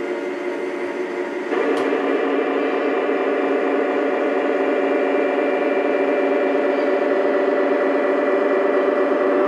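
Model GP-7 diesel locomotive's electronic engine sound, a steady droning rumble that steps up louder and fuller about a second and a half in, like the engine notching up.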